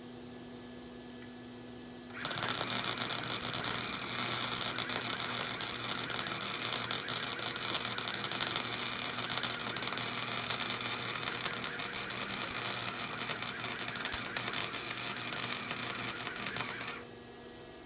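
Flux-core wire-feed welder arc crackling steadily as a bead is run on a steel exhaust pipe. It strikes about two seconds in, holds an even crackle for about fifteen seconds, and stops shortly before the end.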